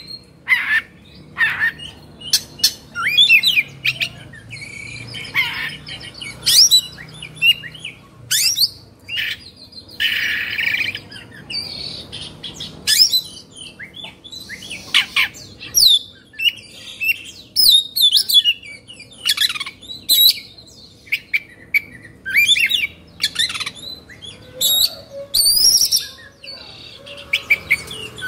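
Oriental magpie-robin (kacer) singing in its excited, agitated 'kongslet' state: a rapid, loud string of sharp whistled notes and pitch sweeps, broken by a harsh rasping call about ten seconds in.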